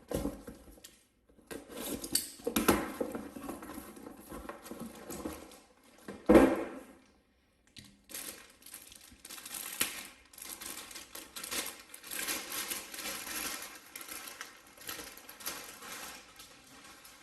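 Packaging being handled and crinkled, with rustling and tearing, as a new laptop keyboard and palm-rest assembly is unpacked. A single sharp knock comes about six seconds in.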